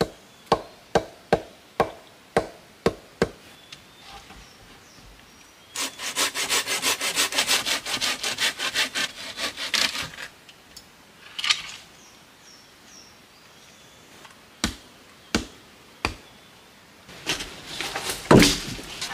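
Hand work on logs: a quick run of sharp knocks on wood, about three a second, then about four seconds of hand-sawing through a log, with a few separate knocks near the end.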